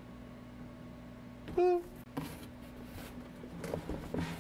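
Cardboard packaging rustling as the box is opened and a snare drum is handled inside it, with light clicks and knocks that grow busier from about two seconds in. A short pitched sound about a second and a half in is the loudest thing heard.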